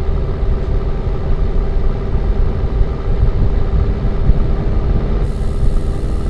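Jeep Cherokee XJ driving: steady engine and road rumble with a constant drone.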